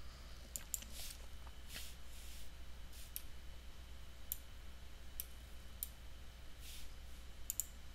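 Computer mouse clicking: about a dozen sharp single clicks, scattered unevenly, some in quick pairs, over a faint steady low hum.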